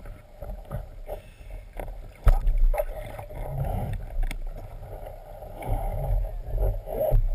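Water sloshing and splashing around a camera held at the surface, with a string of knocks and bumps on the housing, the loudest one a little over two seconds in.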